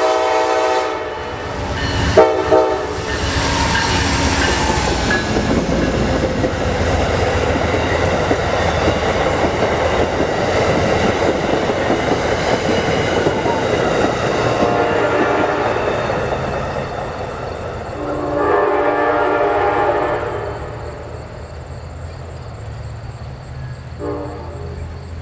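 A train passing close by, its wheels running over the rails, while the locomotive's multi-note air horn blows several times: a long blast at the start, a short one about two seconds in, more blasts in the second half, and a short one near the end.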